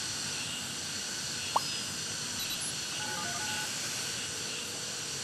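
Mobile phone keypad dialing tones: a few short beeps about three seconds in, over a steady background hiss. A short sharp chirp comes about a second and a half in.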